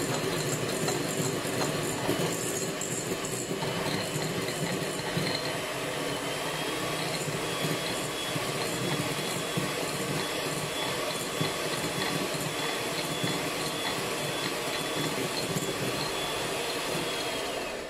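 Electric hand mixer running steadily, its beaters whipping fresh cream in a glass bowl, with a faint high whine over the motor noise. It is switched off right at the end.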